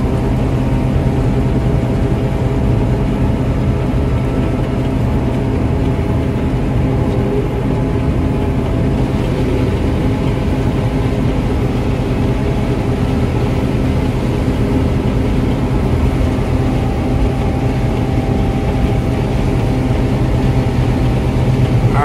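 John Deere 9770 STS combine harvesting corn, heard from inside the cab, with the separator engaged and the corn head cutting. The machine gives a steady, unchanging drone: a hum of several even tones over a rushing noise.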